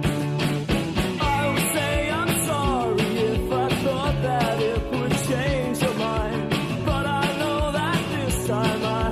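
Rock song with a steady drum beat, bass and guitar, and a singing voice.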